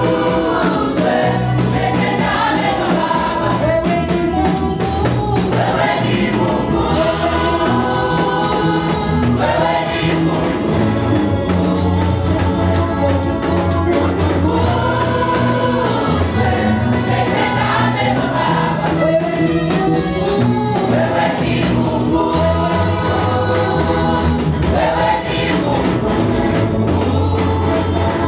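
Mixed choir of men and women singing a Swahili gospel praise song into microphones, over a steady bass line and drums.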